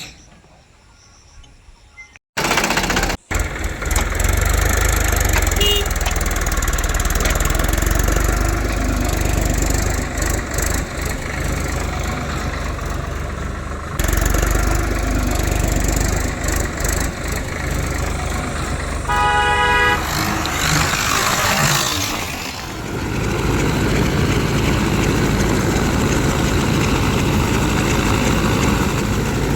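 Heavy farm machine's engine running steadily, coming in abruptly about two seconds in. There is a short horn blast about two-thirds of the way through.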